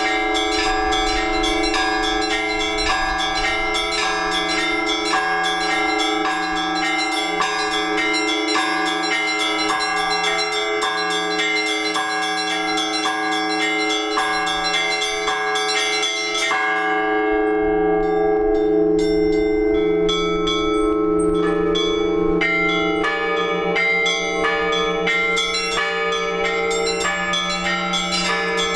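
Orthodox church bells rung together in a peal: the small bells are struck in a fast, steady rhythm over the long ringing of the larger bells. About sixteen seconds in the small bells stop briefly while the big bells ring on, then they come back in.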